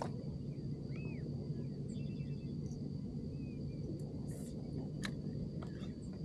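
Marsh-side outdoor ambience: a steady low hum and a steady high, insect-like whine, with scattered short bird chirps and a few faint clicks.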